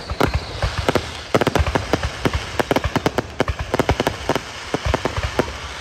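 Aerial fireworks bursting overhead: a dense, irregular run of pops, bangs and crackles from many shells going off in quick succession.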